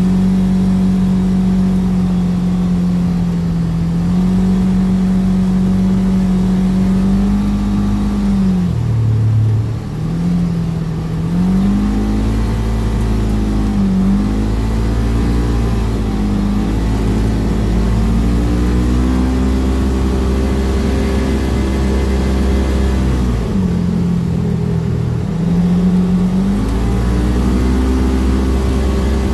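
Vehicle engine running steadily while driving along a gravel road, its pitch dropping twice as it slows and then rising again as it speeds back up.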